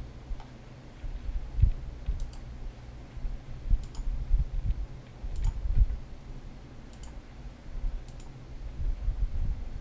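Computer mouse button clicking, one sharp click about every one and a half seconds, as a setup wizard's Next button is pressed page after page. Heavier low thuds and rumble sound underneath and are the loudest part.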